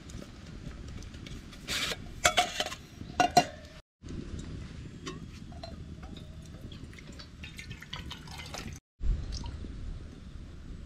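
Aluminium camping cooker pots and lid clinking as the nested small pot is opened, then water pouring from a kettle into the aluminium pot to cook rice, with a thump near the end.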